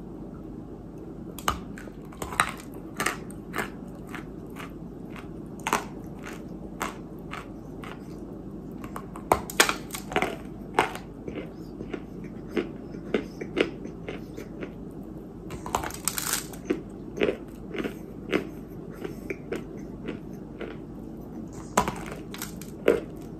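Biting and chewing a big piece of Georgia white dirt (kaolin clay): irregular sharp, dry crunches, some louder than others, with a longer grinding crunch about two-thirds of the way through.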